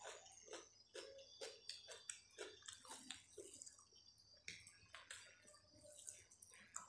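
Quiet, wet squishing and sticky clicks of fingers kneading cooked rice into curry on a steel plate, mixed with soft chewing sounds.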